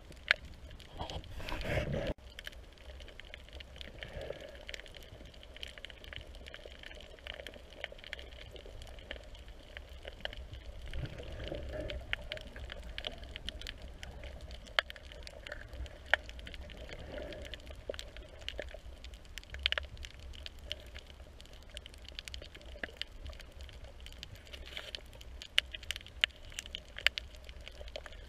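Underwater ambience heard through a camera's waterproof housing: a steady low rumble of moving water with many scattered sharp clicks and crackles. A louder rush of water noise comes in the first two seconds.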